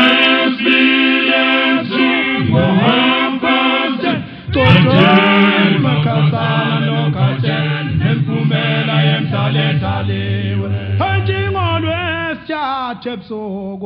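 Male a cappella choir singing isicathamiya in close harmony over a deep, sustained bass part. The singing breaks off briefly a little over four seconds in, then resumes.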